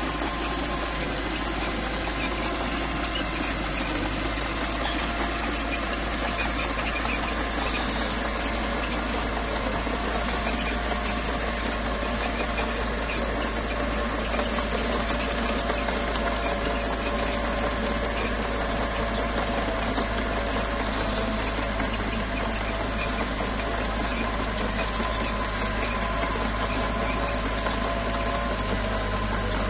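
Small bulldozer's diesel engine running steadily, with a dense, continuous rattle and a few steady tones over a low hum.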